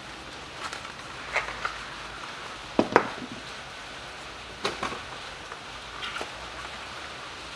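Used spark plugs being set down one at a time on a hard plastic cover: a few scattered sharp clicks and knocks, the loudest about three seconds in, with small handling noises between them.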